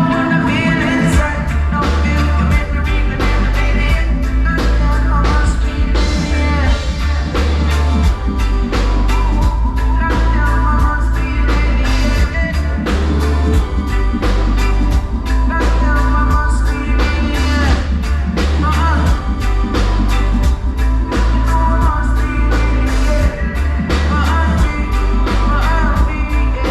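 Live reggae band playing: a heavy bass line under a drum kit keeping a steady beat, with guitar and a singing voice.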